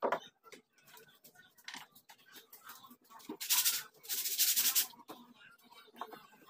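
A small plywood piece being hand-sanded along its edge: two long scratchy strokes about three and a half seconds in, with a few light knocks as the wood is handled.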